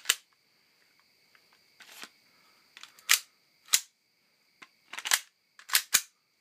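Sharp plastic-and-metal clacks of a WE-Tech M&P9 gas blowback airsoft pistol's slide being racked and snapping forward with the magazine out, about seven separate clacks with two close together near the end.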